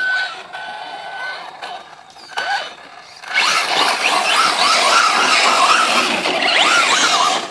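Traxxas Slash 4x4 RC truck's brushless motor (Castle Mamba Max Pro on a 3S LiPo) whining as it is driven hard on loose dirt, the whine rising and falling with the throttle over the hiss of spraying dirt. A brief steady whine comes first; the loud run starts about three seconds in and stops just before the end.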